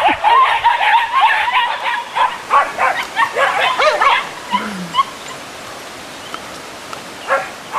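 A litter of eight-week-old Belgian Malinois puppies yipping together. Many short high calls overlap for about four seconds, then thin out to a few single yips.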